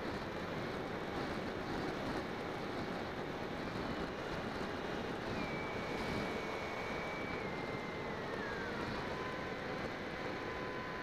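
Bixler 2 RC plane's electric motor and propeller whining, picked up by a camera on the airframe, under steady wind rush on the microphone. About two thirds of the way through, the whine falls in pitch and settles lower.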